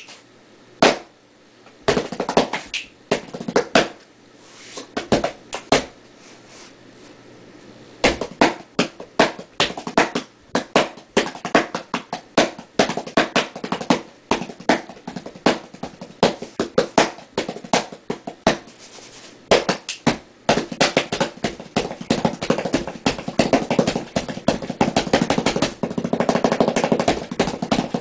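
Hands and fingers drumming on a cardboard box: a few separate hits at first, then a steady beat from about eight seconds in, turning into fast rolls for the last several seconds.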